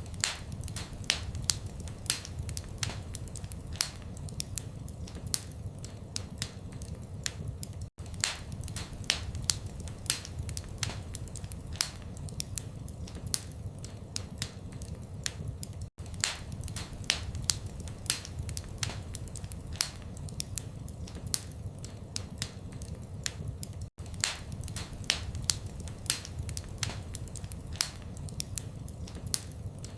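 Wood fire in a fireplace crackling, with frequent sharp pops and snaps over a low steady rumble of flame. The sound cuts out for an instant every eight seconds or so.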